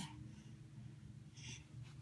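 Quiet room with a faint steady low hum and one brief soft breath about one and a half seconds in.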